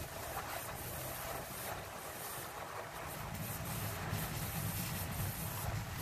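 Steady rushing of rinse water and black-tank waste through an RV's clear sewer elbow and hose while the black tank is flushed, with a low rumble growing stronger about halfway through.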